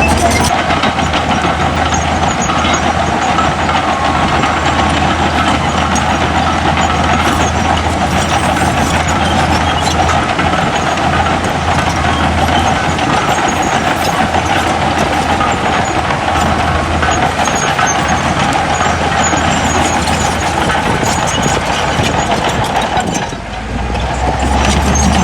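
Heavy diesel engine running steadily, with a brief dip in loudness near the end.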